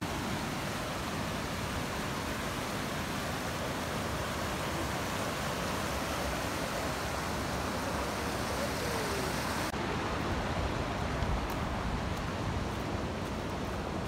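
River water rushing steadily over rock ledges and small cascades, a continuous even roar of whitewater.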